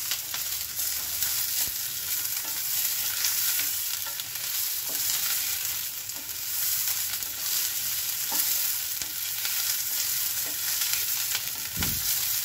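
Chopped vegetables (onion, green peas, carrots, curry leaves) sizzling in hot oil in a steel pan while being stirred with a wooden spatula, with faint scrapes of the spatula on the pan. The vegetables are being sautéed soft, and there is a low knock near the end.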